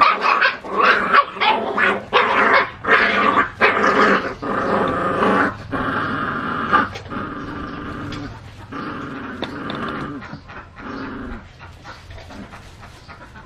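Puppies growling in rough play-fighting, loud and almost continuous for the first half, then quieter and more broken.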